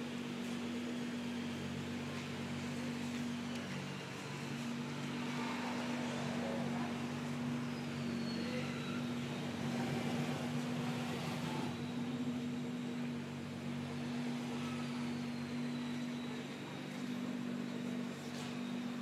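Steady low machine hum, unchanging in pitch, with no revving.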